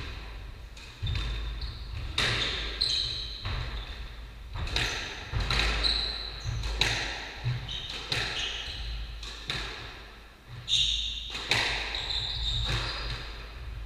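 Squash rally: the ball cracks off the rackets and the walls again and again, with shoes squeaking on the wooden court floor between the shots, all echoing in the hall.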